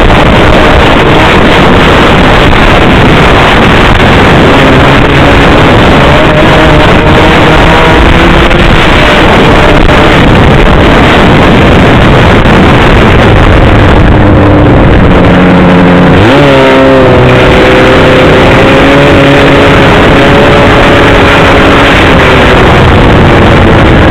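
Snowmobile engine running under way, with wind and track noise, very loud and overloading the on-board microphone. About two-thirds of the way through, the engine note sweeps sharply, then runs on at a steadier pitch.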